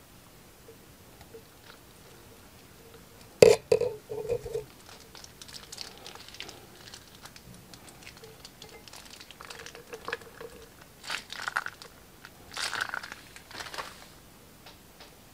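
Scissors snip the tip off a plastic piping bag with one sharp click about three seconds in. Then glossy slime squelches and crackles in small wet pops as it is squeezed out of the bag over plastic charms, louder in two spells near the end.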